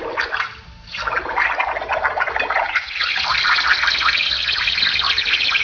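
Compressed air blowing out of a brass welding-torch tip held under water in a glass dish, bubbling hard. The bubbling drops off briefly near the start, then runs on steadily and loud.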